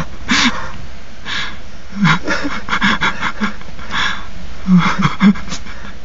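Stifled, breathy laughter in irregular short bursts, from people breaking up during a take.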